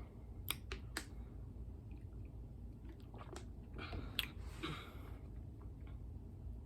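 A person chewing a taco close to the microphone, with sharp wet mouth clicks and a noisier, crunchier stretch of chewing about four seconds in.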